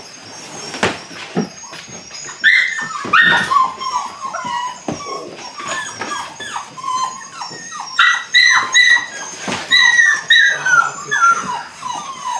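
Eight-week-old Belgian Malinois puppy whining and yipping in short high-pitched cries, many falling in pitch. The cries start about two seconds in, come in rapid runs, and are loudest in two spells.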